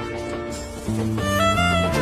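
Background music: a melody of held notes over a bass line that steps down through several notes partway through.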